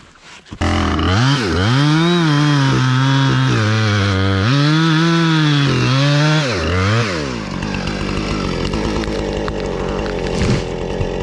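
Chainsaw engine starting up loud and being revved, its pitch rising and dipping several times, then settling into a lower, rougher steady note from about seven seconds in.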